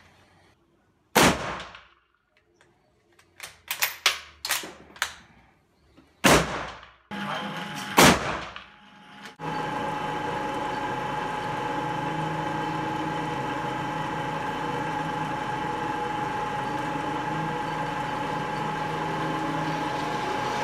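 Three shots from a large-calibre bolt-action service rifle, each with a ringing echo tail: about a second in, near six seconds and near eight seconds. Lighter sharp clicks and knocks fall between the first two shots. From about halfway through, a steady mechanical hum with a constant whine takes over.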